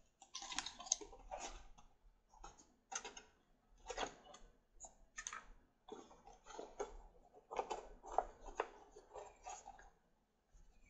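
Cardboard box and packaging handled: soft, irregular rustling, scraping and tapping as the box flaps are opened and a metal butane torch is slid out of it.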